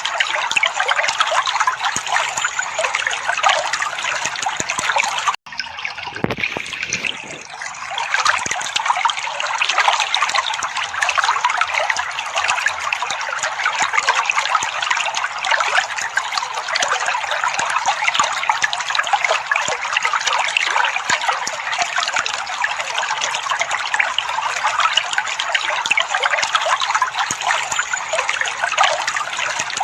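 Water trickling and splashing steadily, with a brief break in the sound about five seconds in.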